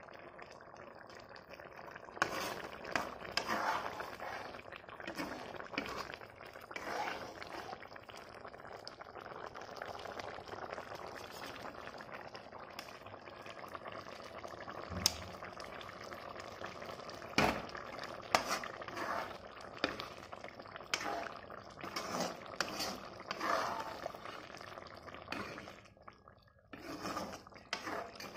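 Eel and potato curry bubbling as it simmers in a pan, a dense crackle of popping bubbles in thick gravy that picks up about two seconds in, with a few sharp clicks.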